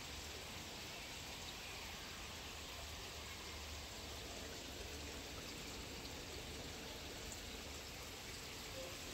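Faint steady rush of running water from fish-tank filtration, with a low hum underneath.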